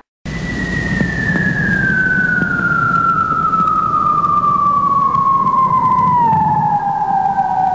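Cartoon sound effect: a single whistle slides slowly and steadily down in pitch for about seven seconds over a low rushing noise, then cuts off abruptly.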